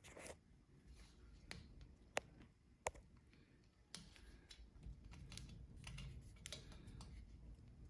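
Faint, scattered small clicks and taps of plastic from the windshield wiper blade's release tab and clip being pressed and worked by hand, close to the microphone, about half a dozen over several seconds.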